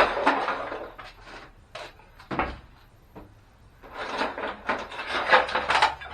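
Hammer striking a plastic printer casing, with pieces rattling after the blow, followed by a couple of single knocks. Near the end comes a couple of seconds of dense cracking and clattering plastic as the housing is broken apart.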